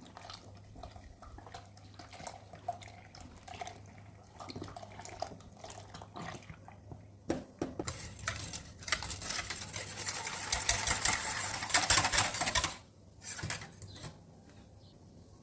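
Kitchen preparation sounds: light clinks and taps of utensils against a bowl, a couple of sharp knocks, then about five seconds of loud, fast mixing or beating in a bowl that stops suddenly. A low steady hum runs underneath.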